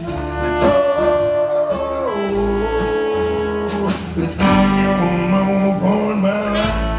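Live band playing an instrumental passage: trombone and trumpet holding notes over drums and electric guitar. One held note drops in pitch about two seconds in.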